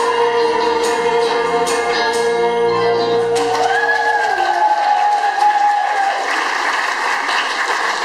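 Live amateur rock band with singers and saxophone ending a song on a long held final chord that stops about four seconds in, followed by the audience applauding.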